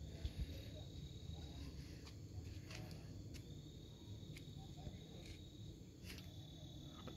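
An insect gives a steady high-pitched trill that breaks off for a couple of seconds midway, over a low rumble and a few faint clicks.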